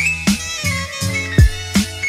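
Background music with a steady beat: kick drum and bass under a bright stepping melody.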